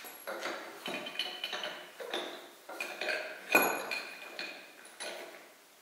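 Metal tools and parts clinking and knocking against a tractor engine block while cylinder liners are fitted: about nine separate clinks, some ringing briefly, the sharpest about three and a half seconds in.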